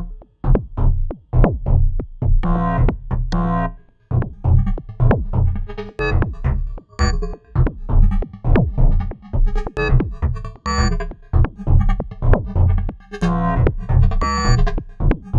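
Make Noise New Universal Skiff System eurorack modular synthesizer playing a summed FM filter-beat patch. A fast rhythmic sequence of short, quickly decaying pitched plucks and percussive hits runs over a pulsing low bass, with a brief drop in level just after the start and again about four seconds in.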